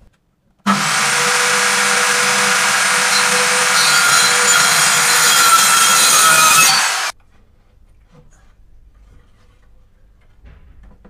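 Bosch circular saw running and cutting along the mitred corner joint of a pallet-wood box, starting abruptly under a second in and cutting off about seven seconds in.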